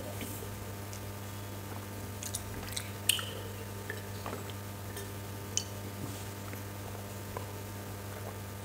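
Sipping and swallowing mouth sounds of a man drinking a cold soft drink from a glass, with a few short wet clicks, the sharpest about three seconds in, over a steady low hum.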